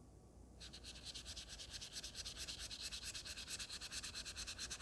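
Straight razor blade rubbed on a Naniwa 1K whetstone in quick, short back-and-forth strokes, a rapid rhythmic scratchy rubbing with several strokes a second that starts about half a second in.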